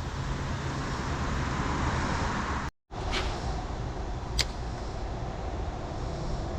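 Steady rushing noise of creek water and wind on the microphone, cut off briefly about three seconds in, with one sharp click about four seconds in.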